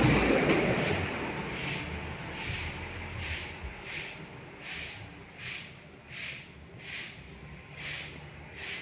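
Broom sweeping in steady strokes, a short swish about every three-quarters of a second. A louder rushing noise fades away over the first second or two.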